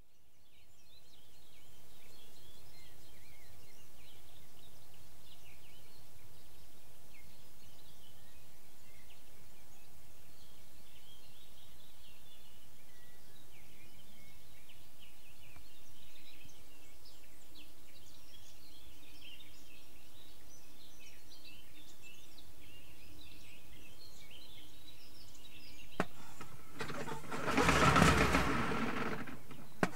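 Small birds chirping and singing over quiet outdoor background noise. Near the end a click is followed by a loud, pulsing noise with a few steady tones in it, the loudest sound here.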